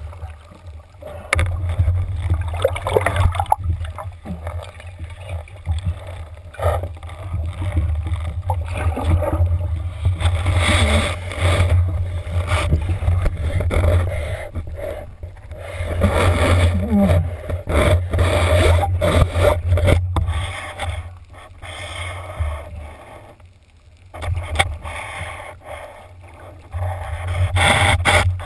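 Water noise picked up by a camera at or just under the surface: splashing and rushing water with a low rumble, swelling and fading in surges, as a diver grapples with a speared wahoo. Scattered knocks and scrapes run through it.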